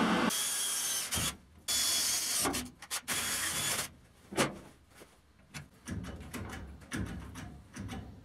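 Metalworking tool noise: harsh hissing in short bursts with brief gaps for the first few seconds, then quieter clicks and knocks.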